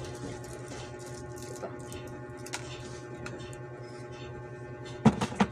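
Canned goods being handled over a cardboard box: faint clicks and handling noise over a steady background hum, then two sharp knocks in quick succession near the end as items are set down.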